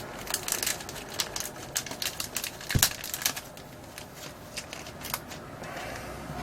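Scattered small clicks, taps and light rustling of small parts and tools being handled during a phone repair, with one louder knock a little under three seconds in.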